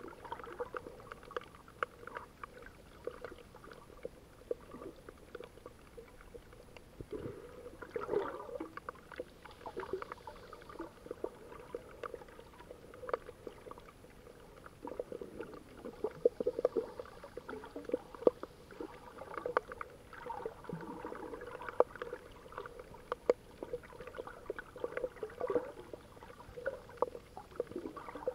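Muffled underwater sound with many irregular sharp clicks and crackles throughout, over a low watery rumble that swells now and then.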